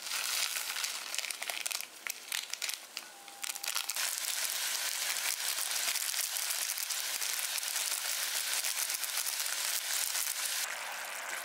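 Foil sauce packets crinkling and rustling as they are shaken and tipped out over a pan. From about three and a half seconds in, a steady high hiss runs under it.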